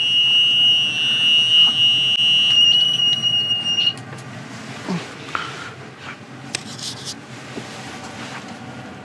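Electronic bite alarm on an ice-fishing nod (Shcherbakov signaller) sounding one continuous high-pitched beep for about four seconds, then cutting off: the signal of a fish taking the bait.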